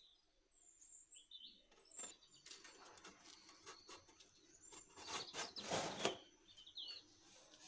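Sliding metal lid of a Pullman loaf tin scraping and clattering as it is pushed on, in a run of short knocks that is loudest about five to six seconds in. Faint bird chirps in the background.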